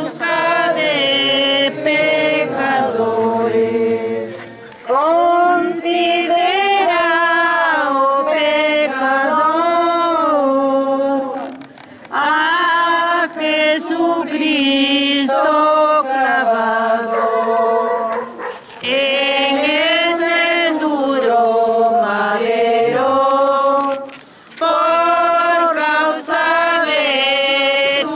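A group of voices sings a slow religious hymn in unison. It goes in long phrases of several seconds, with short breaks between them.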